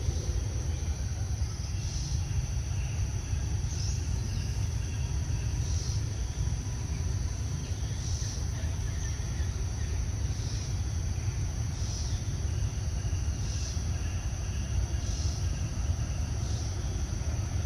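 Insects droning in a high, steady chorus that swells briefly about every two seconds, over a steady low rumble.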